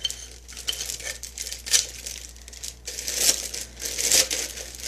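Plastic packaging crinkling and rustling as it is pulled off a ceramic wax warmer, in irregular handling bursts.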